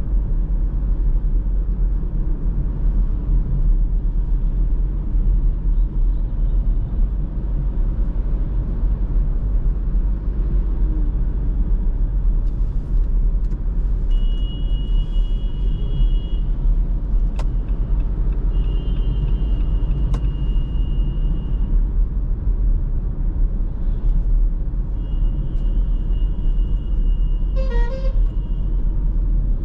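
Steady low rumble of a car driving on the road. Vehicle horns sound several times in the second half, each a high tone held for one to three seconds.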